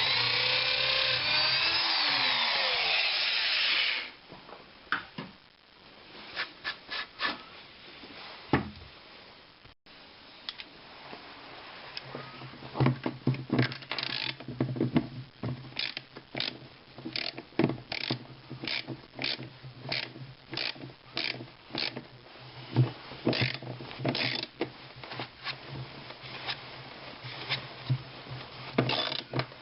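Electric drill boring for about four seconds, its pitch sliding as it works, then cutting off. After that come scattered knocks and clicks of hand work on the parts, growing into a busy run of knocks over a low hum later on.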